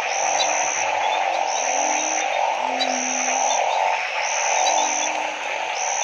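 A loud night chorus of narrow-mouthed frogs calling after rain. Low, drawn-out croaks come about once a second over a dense, steady din. A high, even note repeats about every second and a half throughout.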